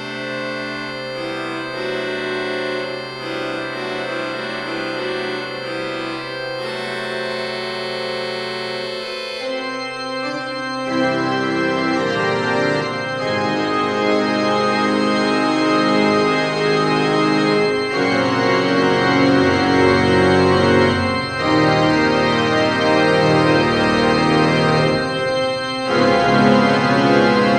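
Church organ improvisation: chords over a long held bass note, then about eleven seconds in a louder, fuller registration comes in with deep pedal notes underneath, the sound building toward the end.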